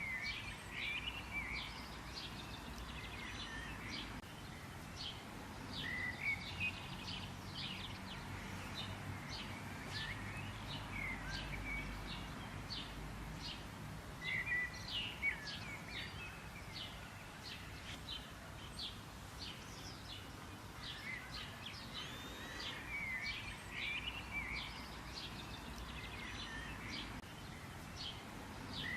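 Songbirds chirping and calling: a steady stream of short, sharp chirps with occasional warbled phrases, over a faint low background rumble.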